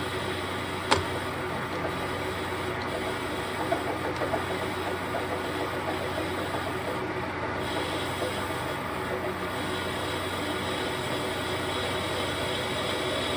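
Machinery running with a steady hum, with a sharp click about a second in and a few light knocks around four seconds.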